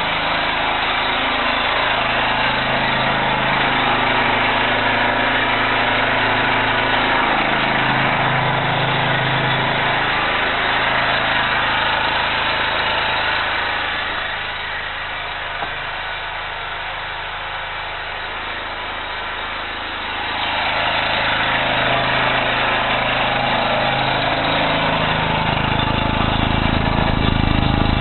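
Small generator engine running steadily on wood gas. It is quieter for several seconds about halfway through and louder and fuller near the end.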